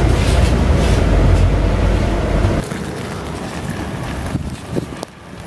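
Low, steady rumble of a city bus under way, heard from inside the cabin, cutting off suddenly about halfway through. After the cut, quieter wind buffeting the microphone outdoors.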